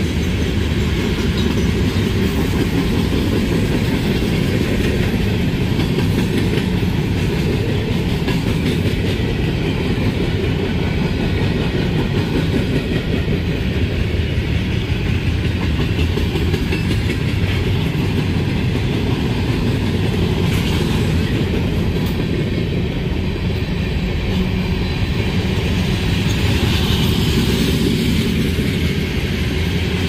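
Freight cars of a CSX manifest train, open and covered hoppers, rolling past: a steady rumble of steel wheels on the rails.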